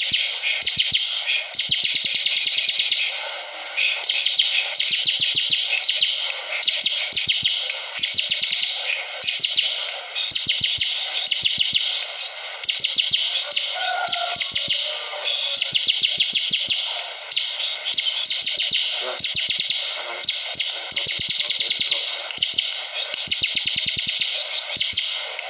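A ciblek kristal (bar-winged prinia) singing hard in fast, continuous trills: rapid runs of high, buzzy repeated notes that swell and ease every second or two. This is the rapid rattling 'ngebren' style of song.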